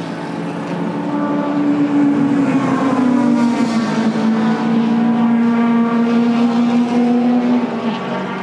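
A Toyota Vellfire minivan's engine as it drives slowly up toward the camera. The engine note grows louder about a second in and drops slightly in pitch around three and a half seconds. It eases off near the end as the van comes close.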